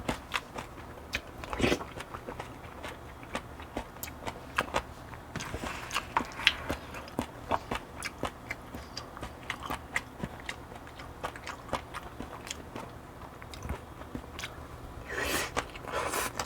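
A person chewing mouthfuls of barley bibimbap and soybean stew close to the microphone, with many quick wet mouth clicks and smacks. A longer hissy sound comes about a third of the way in and again near the end.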